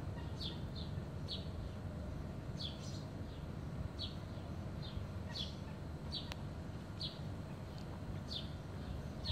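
Short, high, bird-like chirps, each slightly falling in pitch, repeating irregularly about every half second to a second, over a steady low outdoor rumble.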